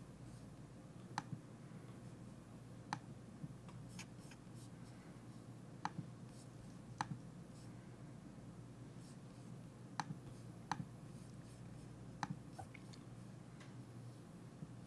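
Single sharp computer mouse clicks, about ten of them, one to three seconds apart, over a faint steady low hum.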